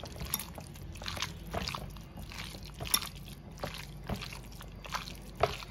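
Wet squelching of a bare hand squeezing and turning raw prawns through a thick spice paste in a glass bowl, a steady run of small irregular squishes and clicks.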